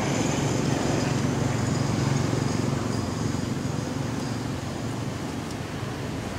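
Steady low engine-like rumble, as of a motor vehicle running nearby, with an even background hiss; no calls from the monkeys are heard.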